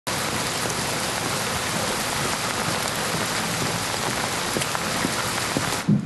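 Steady heavy rain falling, with scattered sharp drip ticks in it; it cuts off suddenly near the end, where a single dull thump follows.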